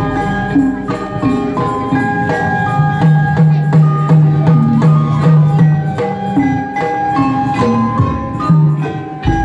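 Sundanese gamelan degung music: struck metal mallet instruments playing a ringing melody over percussion, loud and continuous.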